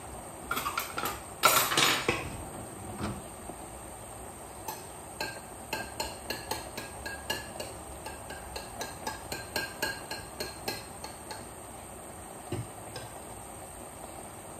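Metal utensil clattering against a cooking pot. A loud clatter comes first, then, after a short pause, a run of light ringing taps about three a second for several seconds, like a spoon stirring and knocking in the pot.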